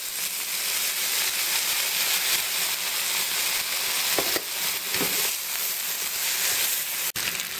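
Blue crab with ginger and green onion frying in a hot pan, a steady sizzle. There is a brief dropout near the end.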